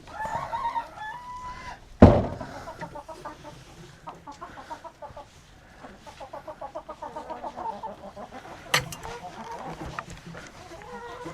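Chickens clucking and calling: a drawn-out call at the start, then a long run of quick repeated clucks through the middle. A single sharp knock about two seconds in is the loudest sound, with a few lighter clicks later.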